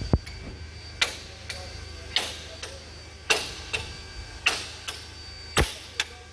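Rhythmic hammer blows on metal during gearbox overhaul work: a sharp ringing knock about once a second, each followed by a lighter tap, over a faint low hum.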